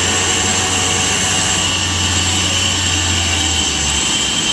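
Sawmill machinery running with a steady mechanical noise and a high whine; a low hum underneath stops near the end.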